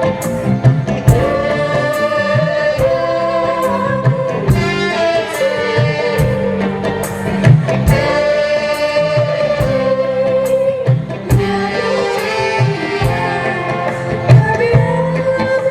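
Dangdut band playing live through a PA: a sustained, wavering melody line over a steady hand-drum beat.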